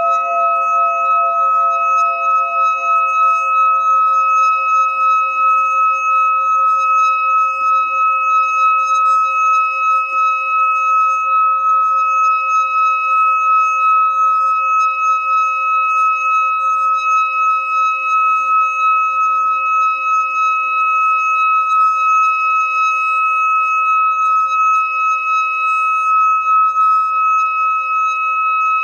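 Singing bowl sounding one long steady ring, a few pure tones with a bright high overtone and a slow wavering pulse. Some lower tones die away in the first few seconds.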